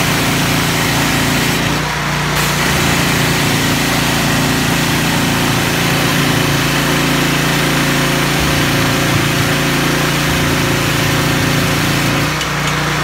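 Choke-started gasoline engine of a hot-water pressure washer running steadily, driving the pump.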